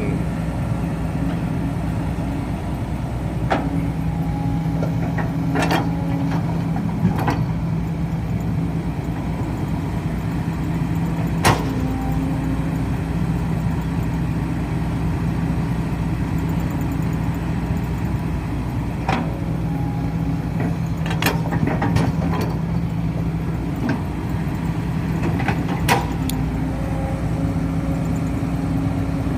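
Heavy diesel engines running steadily at a low, even drone, with scattered sharp knocks and clanks over it.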